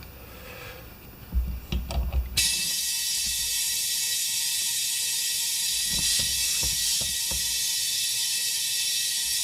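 A few knocks of handling, then about two seconds in a loud, steady hiss of compressed air starts as the new tubeless lawn-tractor front tire is being inflated, with occasional thumps. Air is escaping past a bead that will not seal on the rim.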